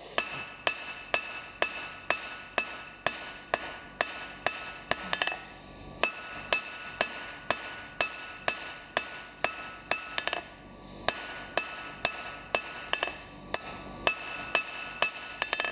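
Hand hammer striking a red-hot square steel bar on an anvil, about two blows a second, each with a metallic ring, drawing out a square taper. Two short pauses break the rhythm.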